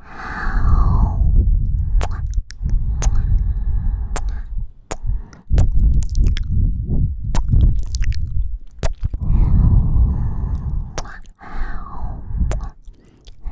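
Close-miked kissing and sucking mouth sounds: wet lip smacks and clicks right at the microphone, coming irregularly, over breath on the mic.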